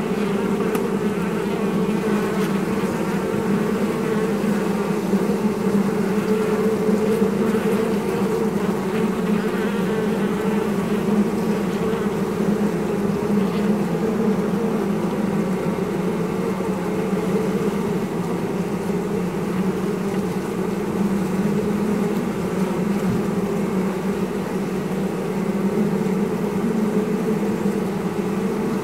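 Honeybee colony buzzing all around the microphone inside the hive, a steady hum.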